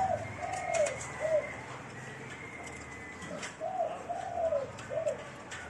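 A dove cooing in the background: two phrases of three arching coos, the second phrase starting about three and a half seconds in. Faint clicks of copier parts being handled sound alongside.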